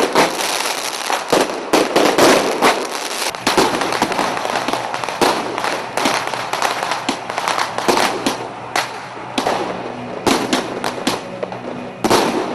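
Fireworks going off in rapid succession: a dense, continuous run of bangs and crackling.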